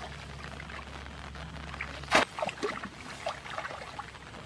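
Shallow water sloshing and splashing as people wade and work a woven basket fish trap, with one sharp splash about two seconds in and small scattered splashes and drips after it.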